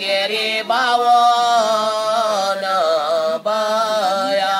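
A man singing a devotional chant in long, held, wavering notes.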